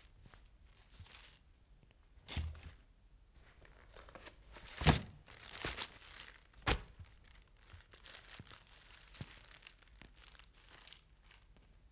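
Foley of paper wrapping being torn and crumpled off a gift bottle, with a few sharp knocks among the rustling, the loudest about five seconds in.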